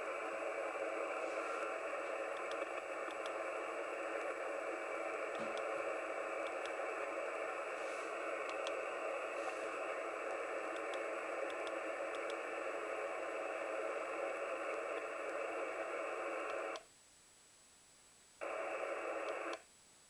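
Steady band noise (static hiss) from the ICOM IC-703 transceiver's receiver, squeezed into a narrow band with no deep lows or high treble. It cuts out abruptly twice near the end.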